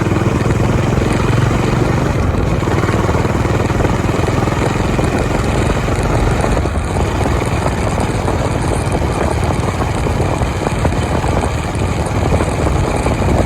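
Honda CB350 motorcycle engine running steadily.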